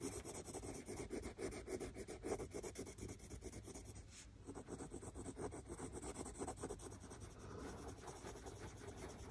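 Prismacolor coloured pencil scratching over textured cartridge paper in quick, short back-and-forth strokes, faint, with a brief pause about four seconds in.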